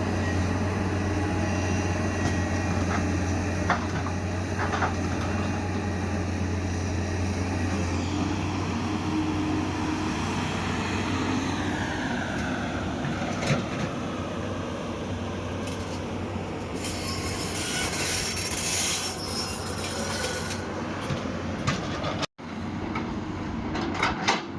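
Diesel engine of a crawler excavator running steadily with a deep hum, a whine gliding in pitch about halfway through, and a few sharp knocks.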